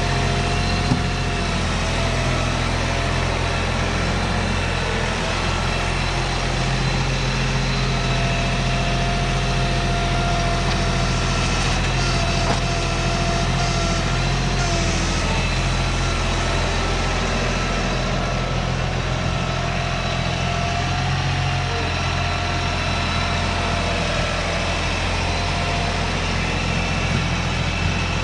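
An engine running steadily at one speed, with no revving up or down.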